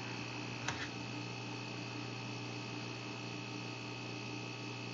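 Steady electrical hum with a faint high steady whine over a light hiss, and one faint short click just under a second in.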